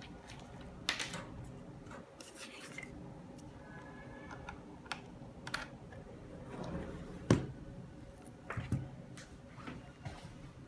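Handling noise from small items being moved around on a desk and a cloth mouse pad: rustling and scraping, with scattered light taps and clicks, the sharpest about seven seconds in.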